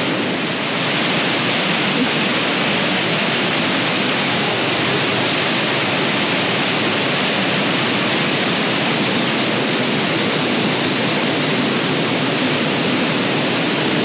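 Fast, muddy stream pouring over rocks at a waterfall cascade: a loud, steady rush of water.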